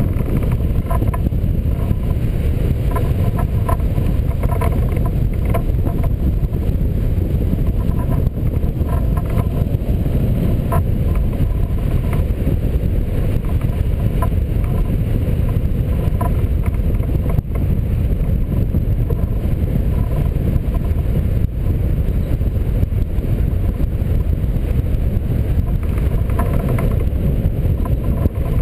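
Airflow over a glider-mounted camera's microphone during a hang-glider flight: a steady, loud low rumble of wind buffeting.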